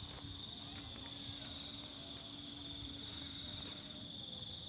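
Steady chorus of insects, several high-pitched trills sounding at once without a break.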